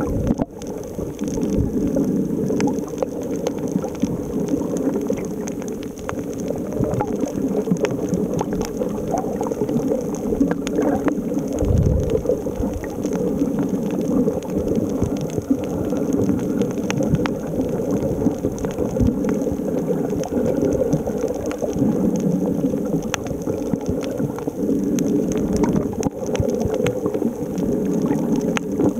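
Underwater ambient noise on a coral reef, recorded with the camera submerged: a steady, muffled low wash of water sound with many faint clicks and crackles scattered throughout.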